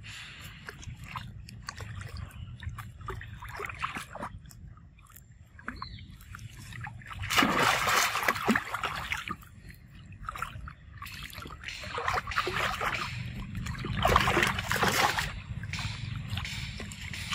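Macaques swimming and splashing in a pool of water: a steady sloshing, broken by bursts of heavy splashing about halfway through and again near the end.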